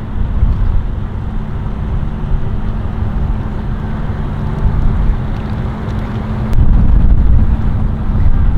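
Wind rumbling on the microphone over the steady low hum of a boat's outboard motor. The rumble gets louder about two-thirds of the way through.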